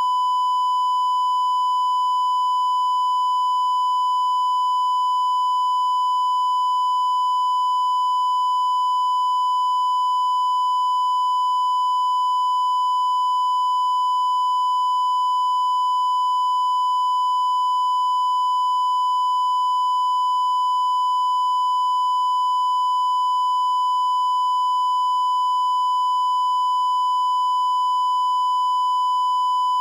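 Broadcast line-up tone: a steady 1 kHz test tone, the reference tone that goes with colour bars for setting audio levels.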